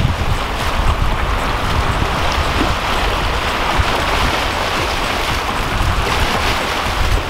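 Small waves washing and breaking over shoreline rocks, a steady rushing hiss, with wind rumbling on the microphone.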